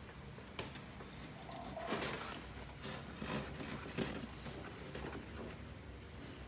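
Handling noises from a red plastic scoop worked inside a styrofoam tub: scattered light knocks and scrapes, with the sharpest taps about two and four seconds in.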